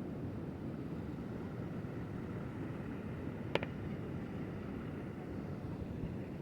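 Steady low rumble of beach ambience, surf and wind on the microphone, with a single sharp click about three and a half seconds in.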